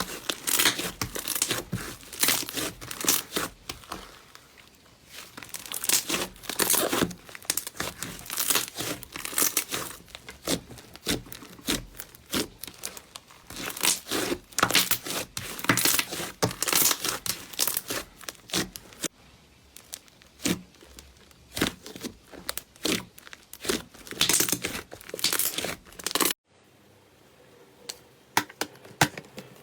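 Slime being squeezed and pulled by hand, giving dense, irregular sticky crackles and pops. About 26 seconds in it cuts to a much quieter stretch with only a few soft clicks.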